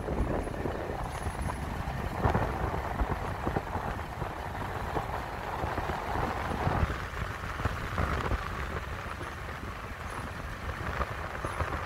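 Steady road and wind noise from a vehicle moving along a paved road, heard from on board, with the engine running underneath and small irregular knocks.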